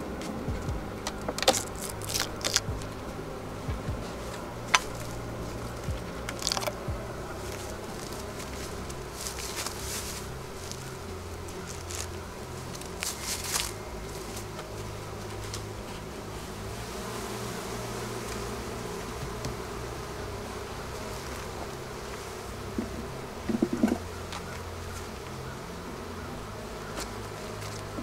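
Honeybees buzzing steadily around an open hive, with scattered sharp clicks and knocks from the wooden hive parts and metal hive tool as the hive is worked, a short cluster of them about three-quarters through.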